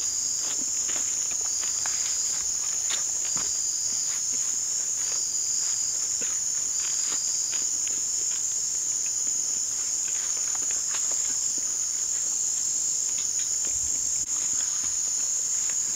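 Steady high-pitched insect chorus, with a fainter pulsing call repeating about every second and a half to two seconds, and a few soft scattered clicks.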